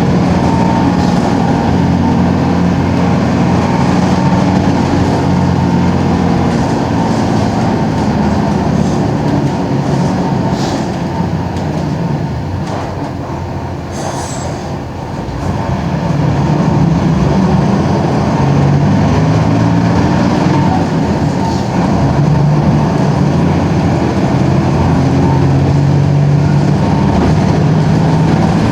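Mercedes-Benz OM-366LA turbo-diesel engine of a Mercedes-Benz OF-1721 city bus running under way. It pulls steadily, eases off about halfway through with a short hiss, then pulls hard again.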